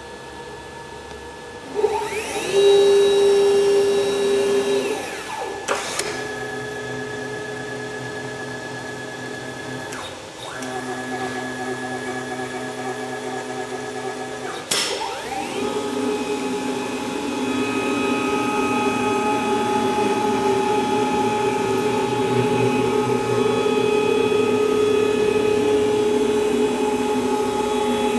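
CNC router running: motor whine that shifts between several steady pitches as the machine moves, with pitch glides about 2 s in and again at about 15 s, likely the spindle or axis motors speeding up and changing.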